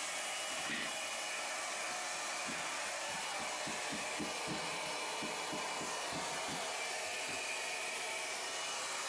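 Electric heat gun blowing steadily, aimed at old vinyl flooring to soften it so it can be lifted. Faint repeated scraping strokes from a scraper pushed under the vinyl come through in the middle.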